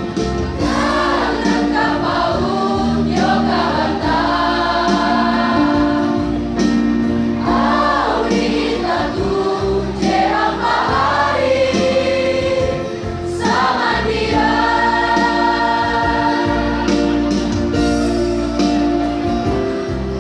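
A large school choir singing together, many voices in chorus, with long held notes.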